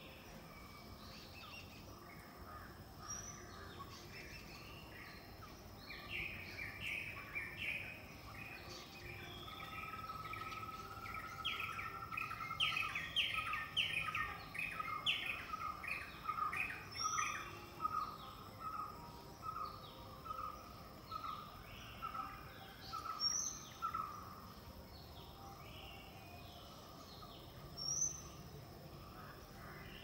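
Several wild birds calling together in forest: a busy mix of short chirps, thickest through the middle. One bird repeats a clear, even note a little under twice a second for a stretch. A brief high rising call comes every few seconds.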